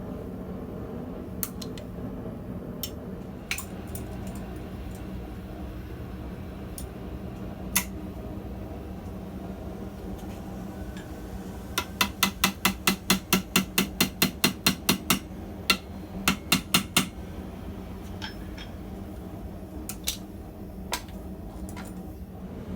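Blacksmith's hammer striking hot steel on the anvil while forging a collar joint: a fast run of about fourteen blows at roughly four a second about halfway through, a few more blows just after, and single metallic clinks before and after. A steady hum runs underneath.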